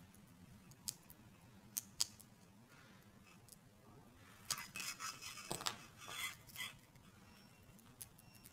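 Metal tweezers clicking and scraping against a small circuit board as they pry open the board-to-board connector between a barcode scanner's scan head and decoder board. A few sharp single clicks in the first two seconds, then a cluster of scratchy clicking from about halfway through.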